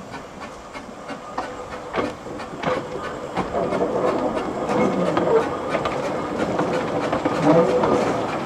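Narrow-gauge saddle-tank steam locomotive running slowly over pointwork, its wheels clicking over the rail joints and switches against a steady hiss. It grows louder from about three and a half seconds in as the engine draws close.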